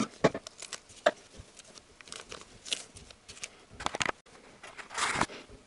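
Plastic packet crinkling and tearing as a new camshaft oil seal is unwrapped by hand, in short scattered rustles with a few clicks, the biggest rustle near the end.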